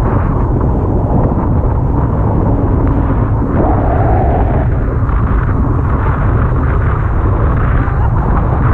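Small motorboat running fast across choppy sea: a loud steady rumble of wind buffeting the microphone mixed with the engine and spray hissing off the hull.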